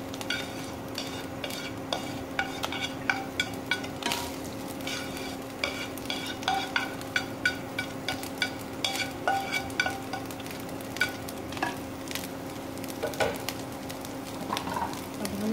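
A spatula stirs and turns boiled rice in a non-stick kadhai, knocking and scraping against the pan with frequent light clicks, over a steady sizzle of hot oil as the chicken-frying oil is mixed into the rice.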